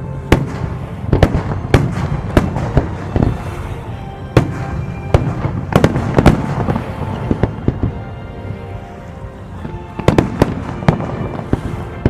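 Aerial fireworks bursting, with sharp bangs at irregular intervals, roughly one a second, and a short lull in the middle. A display's musical soundtrack plays underneath.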